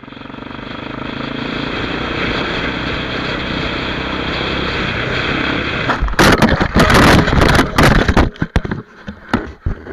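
Motorcycle engine and wind noise from a helmet camera as the bike rides past traffic, growing louder. About six seconds in, a crash: a run of loud impacts and scraping lasting a couple of seconds, then a few scattered knocks.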